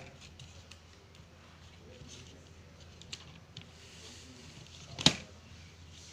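Scattered light clicks and taps of small hand work, with one loud, sharp click about five seconds in.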